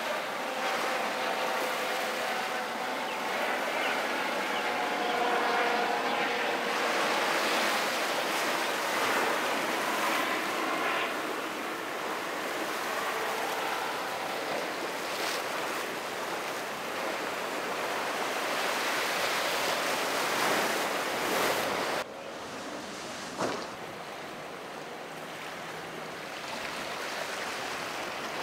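Waves breaking and wind noise, with boat engines running underneath. About 22 seconds in, the sound drops suddenly to a quieter, steady wash.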